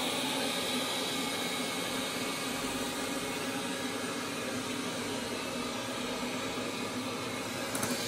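Wyze robot vacuum running on a hardwood floor: a steady whir of its suction fan and brushes as it works around an obstacle, with a brief clicking near the end.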